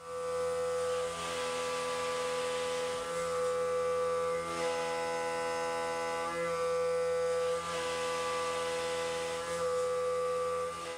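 CNC mill cutting 4140 pre-hard steel with a 3/4-inch SBD backdraft cutter at 5000 RPM: a steady whine of several held tones over a hiss, the tones shifting slightly a few times as the cutter changes direction in the pocket.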